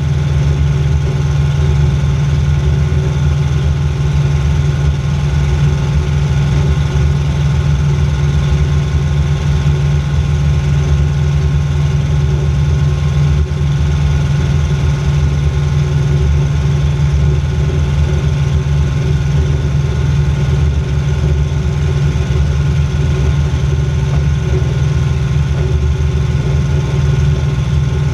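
Aerocruiser floatplane's engine and propeller droning steadily in flight, heard from inside the open-sided cabin: a loud, even low hum with constant pitch.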